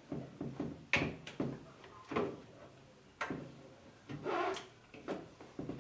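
Irregular knocks and clicks of hard items being handled while a fridge is cleaned out. There is a longer scraping or rubbing sound about four seconds in.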